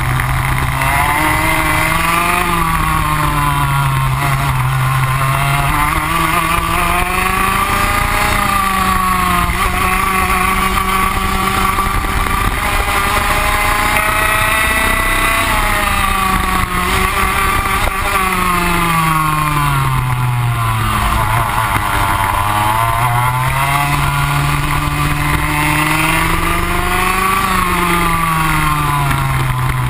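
On-board sound of a kart's Rotax Max 125 single-cylinder two-stroke engine at racing speed, its pitch climbing as it accelerates and falling as it slows, over and over through the lap. It holds high and steady for several seconds mid-way, then drops to its lowest about two-thirds in before climbing again.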